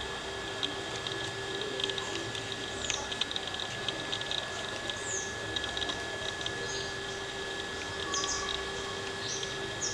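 Coppersmith barbet pecking at a tree branch beside a nest hole: clusters of light, quick taps on wood. Short high downward chirps from other birds sound several times, over a steady high insect hum.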